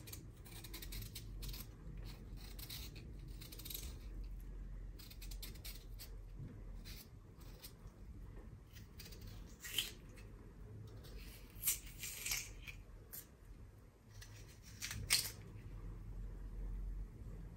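Kitchen knife peeling a raw potato by hand: short, soft scraping strokes of the blade through the skin, with a few louder sharp strokes about ten, twelve and fifteen seconds in.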